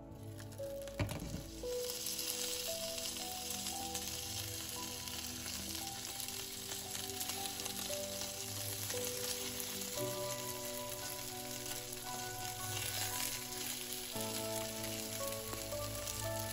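Food sizzling as it fries in a hot pan, the hiss starting about two seconds in after a short knock, over background music.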